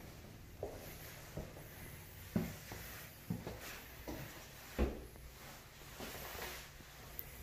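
Soft thuds from the person carrying the camera while moving through the rooms, about one a second, the loudest near five seconds in, over a faint steady hiss.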